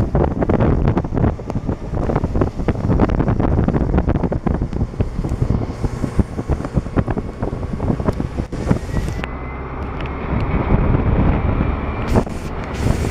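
Wind rushing and buffeting on the microphone from a moving car, with the car's road and engine noise beneath. It eases a little for a few seconds near the end.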